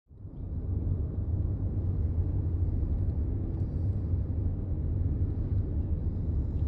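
Steady low road-and-engine rumble inside a moving car's cabin, fading in from silence at the start.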